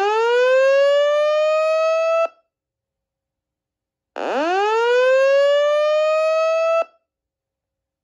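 A fire alarm speaker/strobe sounding a slow whoop tone: a rising sweep that cuts off about two seconds in, then a second full sweep from about four to seven seconds in, with silence between.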